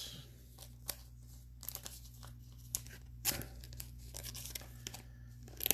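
Trading card packaging being handled and torn open: scattered soft crinkles and tears of wrapper plastic and foil, with one louder rip about three seconds in.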